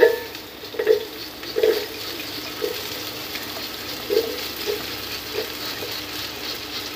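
Sliced onions dropped into hot oil in a metal pot, sizzling and crackling steadily as they start to fry, with a few knocks as the last of them are tipped and scraped in during the first five seconds.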